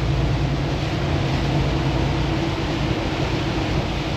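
Steady drone of a semi truck's diesel engine and road noise, heard inside the cab while driving.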